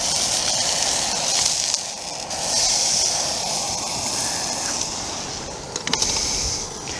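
Burger frying in a pan on an MSR Pocket Rocket 2 gas camping stove, a steady high sizzle with the flame burning hot, dipping briefly about two seconds in. A few light knocks of the pan near the end.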